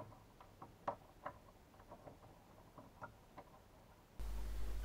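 Faint, scattered small clicks and ticks of fingers working cable connectors loose from a computer circuit board, with a couple of sharper clicks about a second in.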